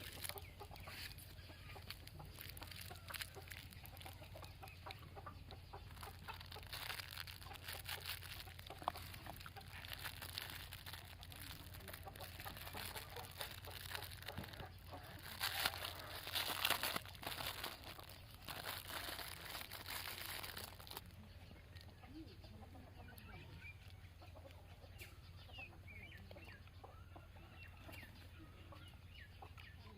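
Chickens clucking in the background over a low steady hum, with a stretch of dense crackling and rustling in the middle.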